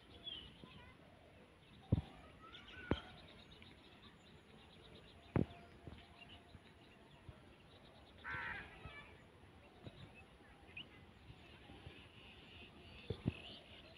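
Faint outdoor ambience with birds calling, including one harsh call about eight seconds in, and three sharp knocks in the first half.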